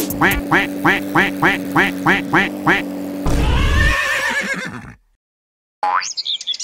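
Cartoon sound effects: a run of quick falling squeaky chirps, about four a second, over a held tone, then a noisy crash lasting about a second and a half as the car falls apart. After a short gap comes a rising whistle that turns into a warbling tone.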